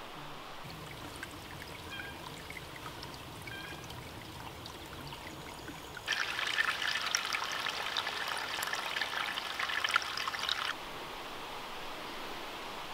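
Shallow creek trickling and splashing over rocks. It starts suddenly about six seconds in and cuts off just under five seconds later, with only a faint outdoor hiss before and after.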